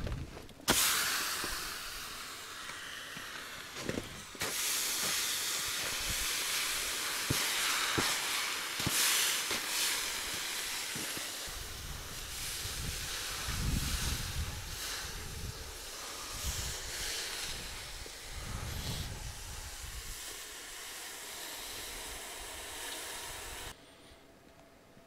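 Hot torch-cut steel hissing and steaming as it quenches in snow; the hiss starts suddenly about a second in and carries on steadily.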